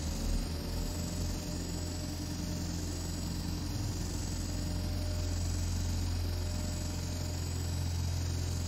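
Steady low engine hum, the sound effect for a sci-fi aircraft.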